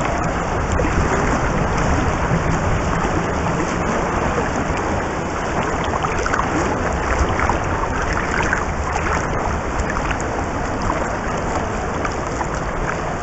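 Swimming pool heard from underwater: a steady, muffled rush of water with crackling bubbles churned up by a swimmer's front-crawl strokes close by.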